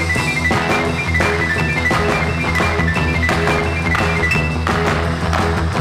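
Background music with drums and a repeating high melody over a steady beat.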